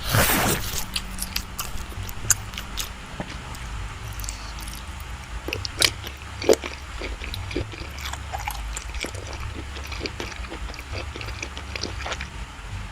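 Close-miked eating of soft creamy cake: a loud bite at the start, then wet chewing and scattered mouth clicks over a low background hum.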